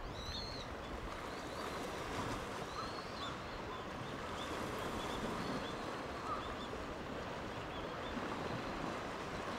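Steady rush of rough sea surf and wind, with faint high chirps over it.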